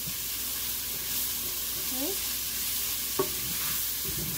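Ground beef with bell pepper, onion and garlic sizzling in a stainless steel pot as a spatula stirs it, scraping and tapping against the pot, with one sharp knock about three seconds in.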